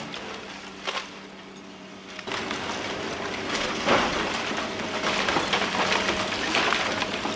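Hydraulic excavator with a demolition crusher tearing down a brick house: bricks and debris crashing and clattering down, with the machine's engine humming steadily underneath. The first couple of seconds are quieter with a single knock; the rubble noise then builds, with its loudest crash about four seconds in.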